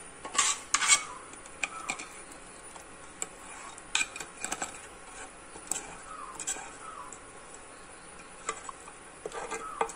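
Spoon clinking and scraping against the rim and side of a metal pot in irregular, scattered strikes as caramel syrup is spooned into milk and cooked vermicelli.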